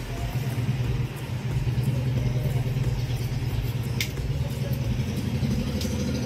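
A steady low hum like an idling engine or motor, growing a little fuller near the end, with a few light knife taps on a plastic cutting board as a tomato is cut.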